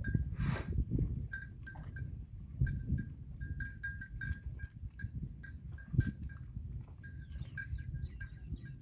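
Bells hung on water buffaloes clinking irregularly, a few times a second, as the animals move and feed, over low rustling and thumps, the loudest about six seconds in.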